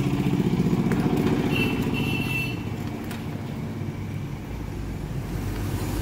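An engine idling: a steady low rumble with an even pulse, with a couple of light clicks as a plastic remote controller's case is handled and opened.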